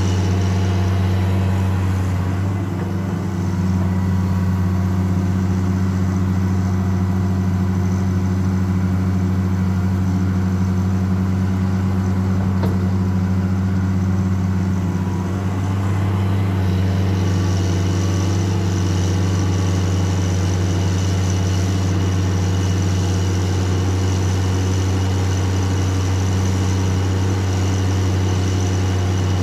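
Caterpillar 336D L ME excavator's diesel engine running steadily while the machine swings and works, a strong low hum with a higher whine over it. The whine drops away about two seconds in and comes back after about seventeen seconds.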